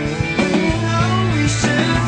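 Rock music soundtrack with drums and a steady bass line.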